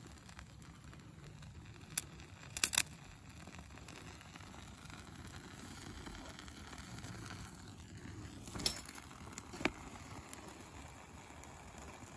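Fatwood shavings burning with a faint crackle over a low, steady hiss, broken by a few sharp clicks and knocks, around two to three seconds in and again around nine to ten seconds in.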